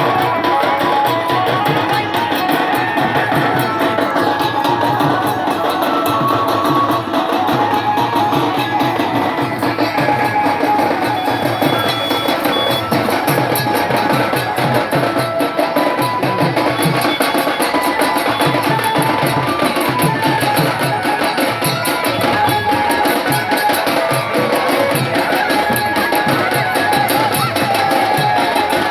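Instrumental folk music: a Casio electronic keyboard playing a melody over a steady, rhythmic drum beat.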